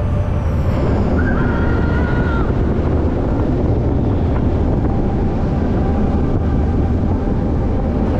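Steel roller coaster train running along its track: a steady, loud rumble with wind buffeting the microphone. A brief high squeal comes about a second in and lasts just over a second.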